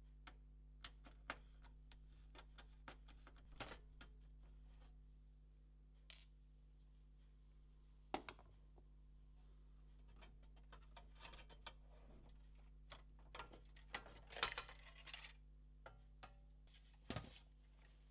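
Light, scattered clicks and taps of small metal screws, a screwdriver and plastic console parts being handled while a PS4 Pro is taken apart, with a denser clatter about fourteen seconds in, over a faint steady electrical hum.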